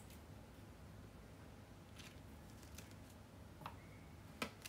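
Quiet room with a few faint, sharp clicks from wooden chopsticks tapping against a plastic sushi tray and a ceramic plate as sushi is picked up and set down. The loudest click comes near the end.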